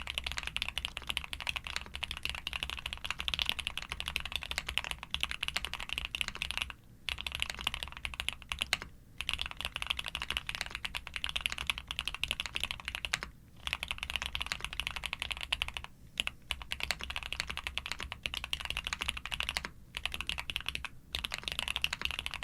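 Fast, continuous typing on a Suit80 custom mechanical keyboard with a POM plate, full foam, DMK Astronaut keycaps and switches built from Cherry top housings on SP-Star white switches. The keys clack in a dense stream, broken by several brief pauses.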